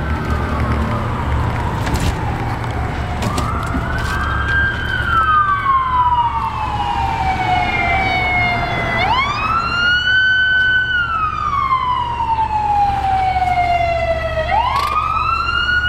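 Emergency vehicle siren wailing: each cycle swings up fast to a high pitch, holds a moment, then slides slowly down over about four seconds, about three times, over a steady low rumble.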